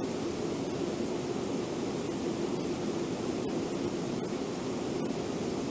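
Brooks River rushing over Brooks Falls and churning through the rapids below: a steady, even roar of white water.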